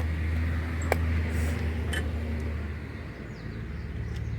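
Metal clicks of a tool working a stubborn cotter pin out of the castle nut on a car's front wheel hub, with two sharp clicks about one and two seconds in, over a steady low hum that fades about three seconds in.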